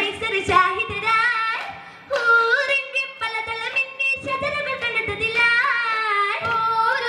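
Girls' voices singing an Oppana song (Oppanappaattu), a Malayalam Mappila melody with gliding, ornamented notes. The singing drops away briefly about two seconds in.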